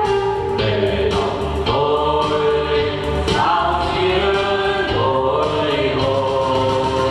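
A mixed group of men and women singing together in unison into microphones, with held notes, over an instrumental accompaniment with a steady, repeating bass line.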